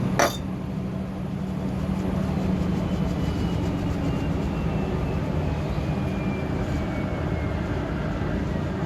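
Steady low engine rumble with a hum, and a faint high whine that slowly falls in pitch through the middle, as of something passing at a distance. There is a single sharp click just after the start.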